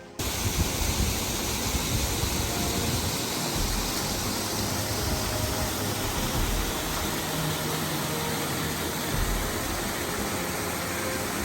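Steady roar of cascading waterfall water, an even rushing noise that cuts in abruptly at the start.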